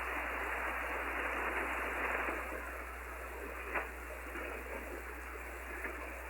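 Hiss of band noise from a shortwave receiver tuned to 10-metre SSB, heard between transmissions. It is steady and cut off above the narrow SSB audio range, with a low hum under it and one short click a little under four seconds in.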